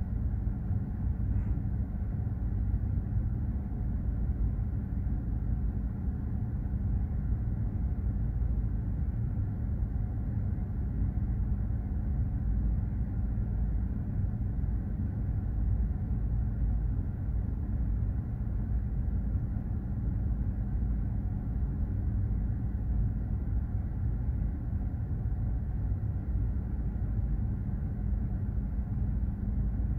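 Container ship under way: a steady low rumble with a hum of several steady tones from the ship's engine and machinery, heard on deck.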